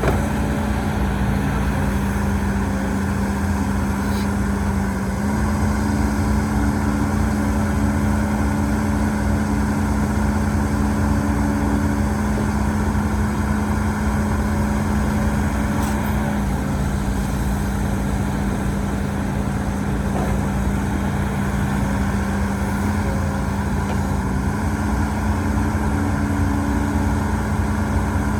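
Diesel engine of heavy earthmoving machinery running steadily with a low rumble, its pitch stepping slightly up and down a few times as the revs change.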